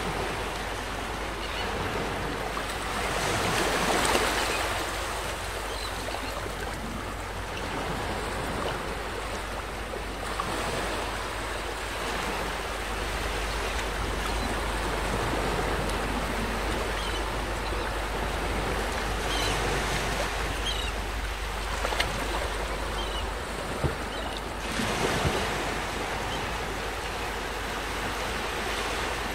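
Small waves lapping and washing up a sandy beach in a continuous hiss of surf, swelling and easing as each wave breaks and runs up the sand.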